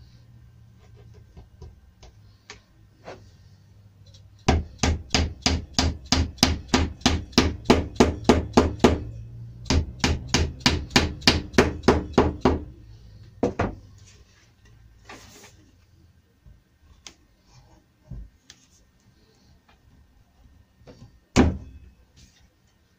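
Hammer driving a glued wooden dowel into its hole in a painted board, in two quick runs of even blows at about four a second. A single loud knock comes near the end.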